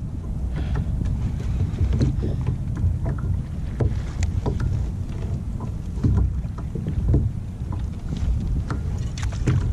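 Wind buffeting the microphone, a steady low rumble, with scattered light clicks and taps from the kayak and tackle during a fight with a hooked fish.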